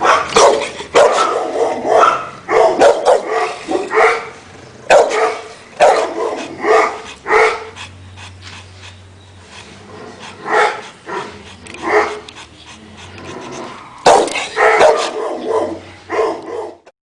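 A dog barking repeatedly in runs of quick barks, with a lull about halfway through and a fresh run near the end.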